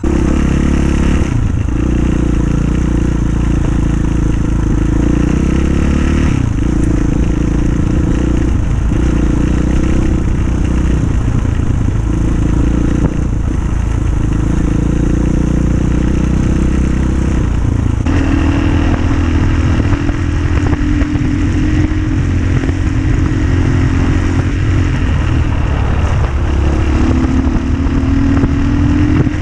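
Rally motorcycle's engine running as the bike is ridden along rough tracks. The engine note rises and falls with the throttle, with a clear change in note about two-thirds of the way through.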